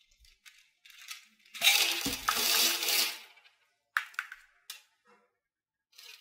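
Candy-coated chocolates clattering onto a pile on a tabletop in a rush lasting about a second and a half, then a few separate clicks as a hand pokes through the candies.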